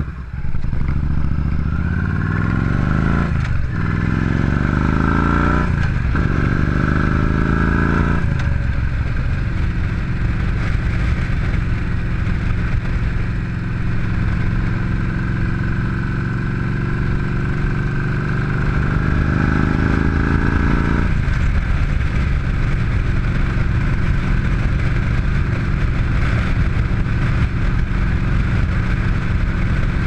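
Yamaha V-Star 950 V-twin pulling away and accelerating through the gears: the revs rise and drop back at three upshifts in the first eight seconds or so, then the engine runs steadily at cruising speed, with one more upshift about twenty seconds in. Wind noise runs under it, and everything is muffled by a sealed waterproof camera housing.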